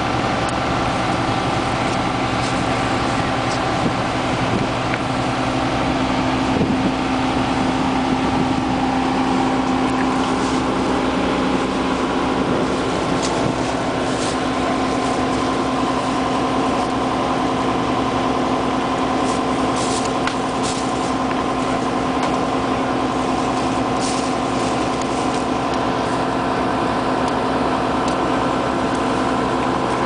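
A large vehicle engine idling steadily, with a few faint clicks over it.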